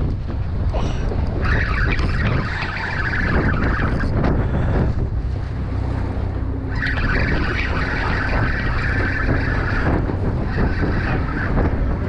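Wind buffeting the microphone over sea chop, with a spinning reel being cranked in spells, its gears whirring, starting about a second and a half in and again about seven seconds in.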